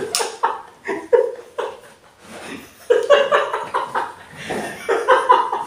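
Laughter: several bursts of a person laughing, with a lull about two seconds in.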